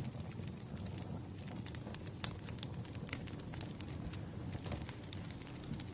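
Wood fire crackling: irregular sharp pops and snaps over a steady low rumble of burning logs.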